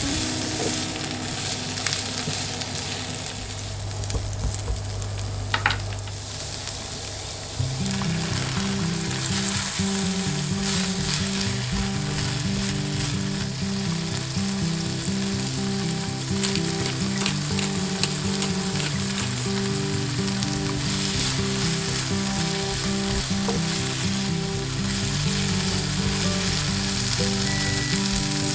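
Green beans sizzling as they stir-fry in oil in a frying pan, with the scrape and tap of a utensil stirring them. Light background music comes in about eight seconds in.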